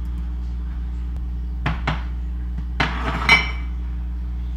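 White ceramic plate set down on a glass-top stove: two light knocks, then a cluster of clinks about three seconds in ending in a louder clink that rings briefly. A steady low hum runs underneath.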